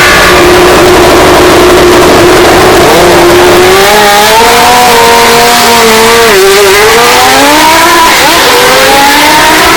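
Historic Formula One race car engine at high revs, accelerating. The note holds steady, then climbs in pitch, with two brief drops in the second half at gear changes before it climbs again. Boosted to the point of distortion.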